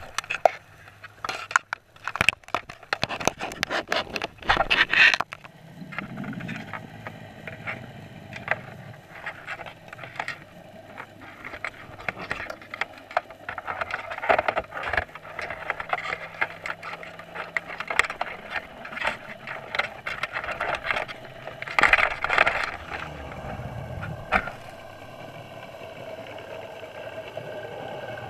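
Muffled underwater sound at a crab net on the seabed: a flurry of sharp clicks and knocks for the first few seconds, then a steady hiss with scattered clicks and scrapes, and another cluster of clicks a little over twenty seconds in.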